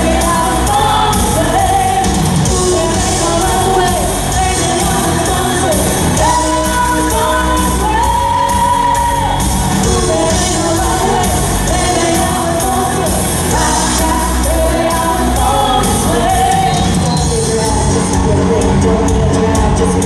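A live pop-rock band with electric guitars, bass and a drum kit, playing under a female voice singing held melodic lines.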